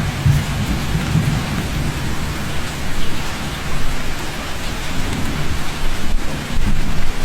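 Steady, heavy rain hissing down, with a low rolling rumble of thunder underneath that swells and fades.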